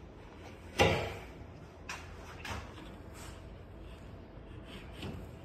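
Knife blade scoring drywall along a marked line: a series of short scraping strokes, the first, about a second in, by far the loudest.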